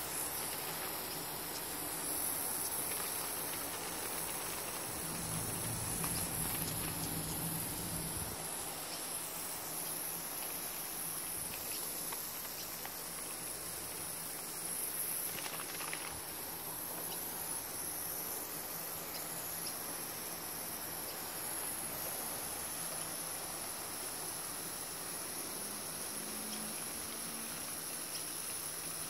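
Fine water spray hissing and pattering steadily onto a fence rail and garden plants, with a constant high-pitched hiss on top.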